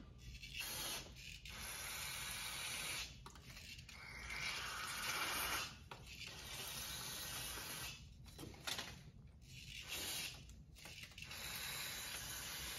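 Aerosol carburetor cleaner spraying onto a snowmobile carburetor body in a series of hissing bursts: three long ones of a few seconds each, then shorter bursts near the end.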